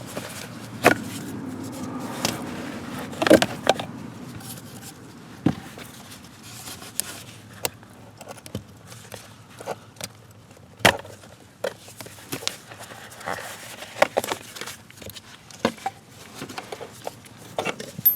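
Irregular clicks, taps and knocks of hand tools and car parts being handled during a blower motor replacement, with a few sharper knocks standing out, about a second in, a little after 3 s and near 11 s.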